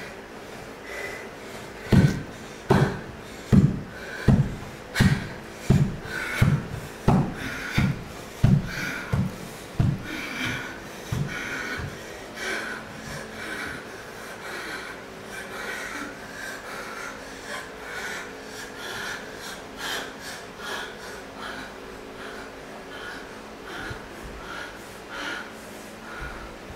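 A dancer's heavy rhythmic breathing with thuds, a strong beat about every 0.7 s for some nine seconds, then easing into softer rhythmic panting.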